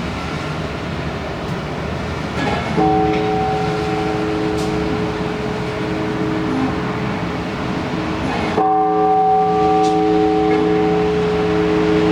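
Large Orthodox church bell tolled in slow single strokes, the first about three seconds in and the second some six seconds later, each stroke ringing on steadily until the next. This is the measured tolling that calls the faithful to the all-night vigil.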